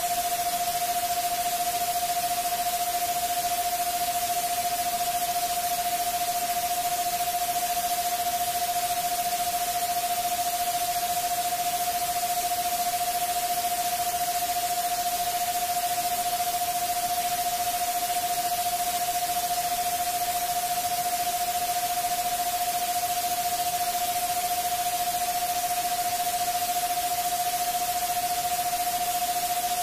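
Electronically generated 'subliminal' sleep-frequency track: a steady white-noise hiss with one unchanging mid-pitched pure tone running through it.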